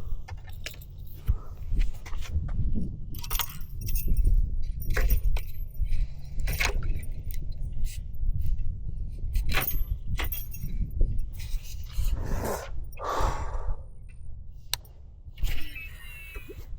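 Metal clinks and rattles of fishing tackle being handled, a metal spoon lure among it, over a steady low rumble. Two longer swishing sounds come about twelve seconds in.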